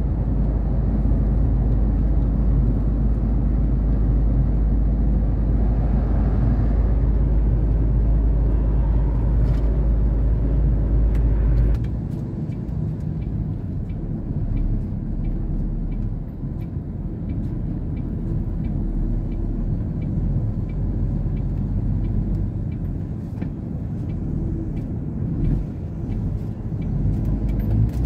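Heavy truck driving, heard from inside the cab: a steady deep engine and road rumble. About twelve seconds in the sound drops abruptly to a lighter rumble, with scattered faint clicks.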